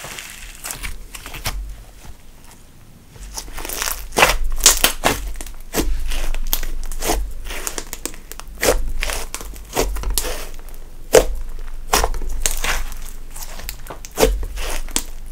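Thick glitter slime, mixed with eyeshadow, being stretched, folded and pressed by hand, giving irregular sharp crackles and clicking pops. The crackles are sparse and quiet for about the first three seconds, then come thick and loud.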